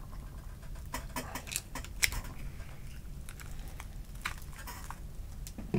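A kitchen knife cutting into a block of ballistic gelatin with pork ribs embedded in it, while hands pull the gel apart: a run of small clicks and crackles, thickest about one to two seconds in and again around the four-second mark.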